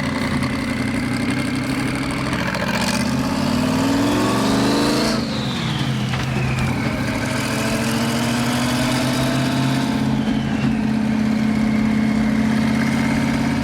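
Race car engine pulling hard up through a gear, its pitch rising, then dropping sharply about five seconds in at a gear change and climbing again more slowly in the next gear.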